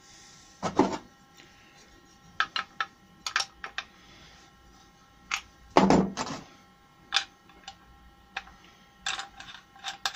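Scattered metal clicks and knocks as a gravity-feed spray gun is handled and worked on at its nozzle end, with two heavier thumps, about a second in and about six seconds in.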